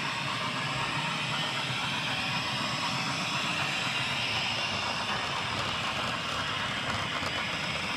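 Steady whirring hiss of an HO scale model train running along the layout's track, even and unbroken throughout.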